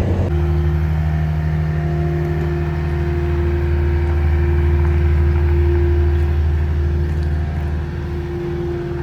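An engine running at a steady speed: an even, unchanging low drone.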